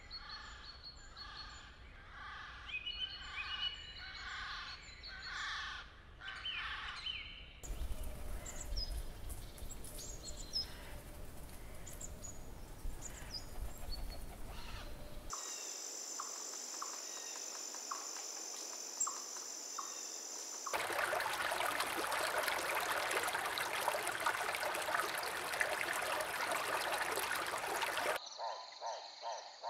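Nature ambience that changes abruptly several times: repeated short bird calls at first, then a noisier stretch with scattered chirps, a steady high-pitched drone near the middle, and a louder, denser hiss of calls near the end.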